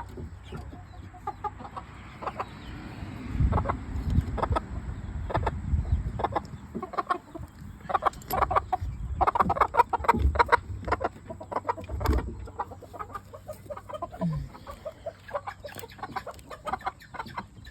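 Chickens clucking in many short, sharp calls. A low rumbling noise sits under the clucking for a few seconds, starting about three seconds in.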